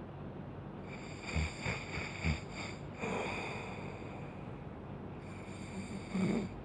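A sleeper snoring, with a few short snorting breaths between about one and a half and two and a half seconds in, a softer breath around three seconds, and a louder snort near the end.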